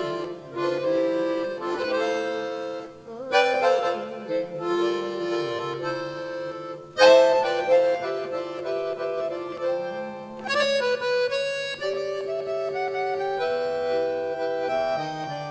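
Instrumental interlude of a caipira-style song between sung verses: a band plays held chords and a melody over a moving bass line, with the phrasing shifting about every three or four seconds.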